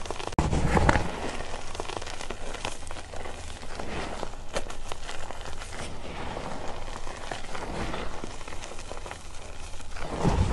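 Hands crushing and crumbling reformed gym chalk (magnesium carbonate) chunks in a pile of loose powder: a dense, continuous soft crackle of small crunches with the hiss of sifting powder. Heavier crunching comes about half a second in and again near the end.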